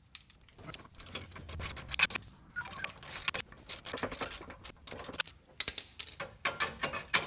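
Metal hand tools, a socket ratchet and a wrench, clinking, clicking and scraping irregularly as they are handled and set onto the bolts, with a few sharper metal clinks.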